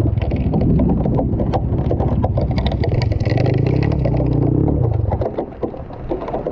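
Enduro motorcycle engine revving up and easing off, with many short knocks and rattles; the throttle drops off about five seconds in.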